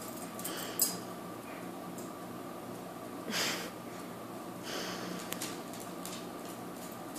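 Short breathy noises from a small dog and a cat nose to nose, one about three seconds in and a weaker one more than a second later, over a steady low hum. A sharp tap comes less than a second in.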